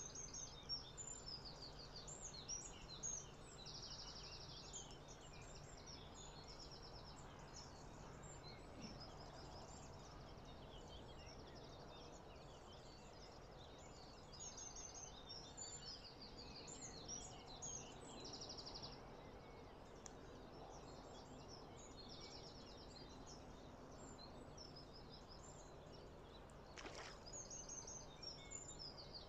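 Many small birds singing faintly, a dense chorus of quick chirps and trills that goes on throughout, over a faint steady low hum.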